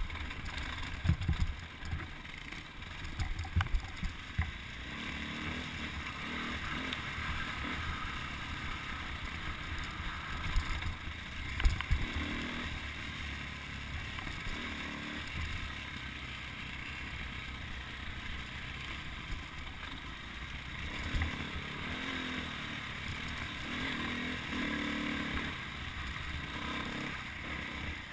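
Dirt bike engine running on a trail ride, heard through a helmet-mounted camera along with wind and rattle, its pitch rising and falling with the throttle. Several sharp knocks come in the first few seconds and a loud one near the middle, typical of the bike hitting bumps and ruts.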